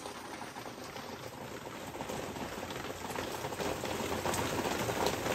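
Torrential rain falling onto a flooded garden path and lawn, a dense steady hiss of drops hitting standing water, growing gradually louder.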